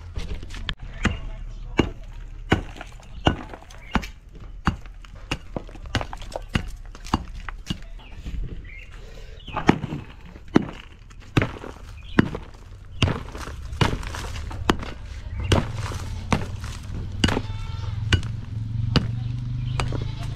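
Loose soil being tamped down with a wooden stick: a steady series of dull thuds, a little more than one a second.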